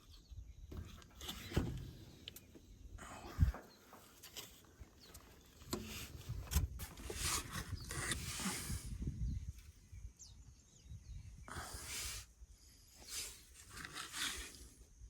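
Irregular handling noises of someone working on engine wiring connectors: rustling, clicks and knocks, with a sharp knock about three and a half seconds in and longer hissing rustles in the middle and near the end.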